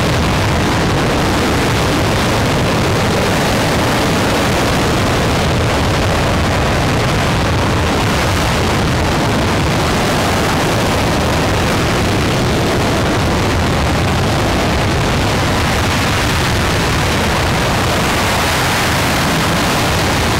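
RS-25 liquid-hydrogen/liquid-oxygen rocket engine, a former space shuttle main engine, firing on a test stand with a steady, loud, unbroken roar.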